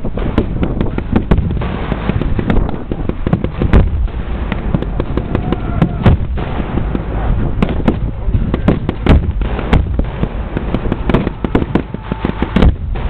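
Staged battle pyrotechnics: ground charges going off in loud bangs every couple of seconds over a constant, irregular crackle of blank gunfire.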